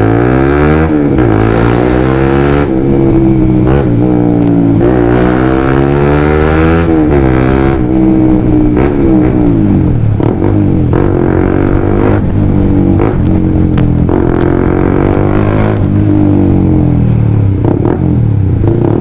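Honda CBR150R's single-cylinder engine running loud through a Yoshimura Alpha carbon full-system exhaust with the decibel killer (silencer) removed. Its pitch climbs and drops back several times as the bike accelerates and shifts up, with a crisp open-pipe note.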